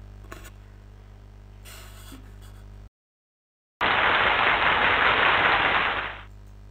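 Steady low electrical hum with a small click, broken by about a second of dead silence. Then a loud burst of rushing, static-like noise lasts about two and a half seconds, and the hum returns.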